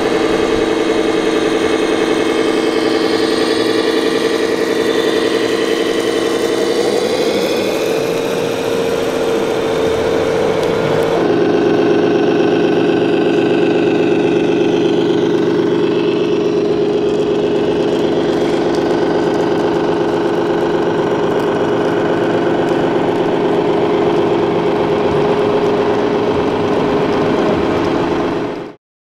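Scale RC trucks' electronic sound modules playing diesel truck engine sound at a steady, near-idle pace, rising slightly in pitch about seven seconds in. The sound changes abruptly about eleven seconds in, then runs steadily again and cuts off suddenly near the end.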